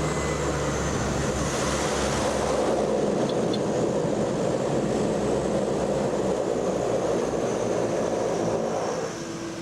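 Small plane's engine running steadily in flight, heard from inside the cabin; the noise drops a little near the end.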